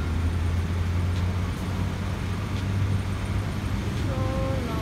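Steady low rumble of street traffic, with a voice heard briefly near the end.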